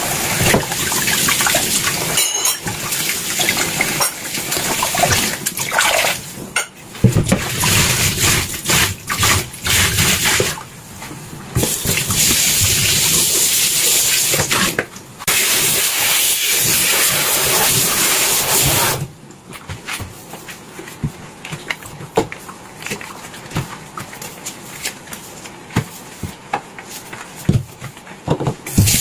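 Water running from a tap into a sink, with dishes knocking, until about 19 seconds in. Then the water stops and only scattered clinks remain.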